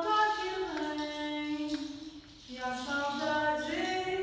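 A woman singing solo in held notes that slide from pitch to pitch, with a hand shaker rattling lightly, and a short breath about two seconds in.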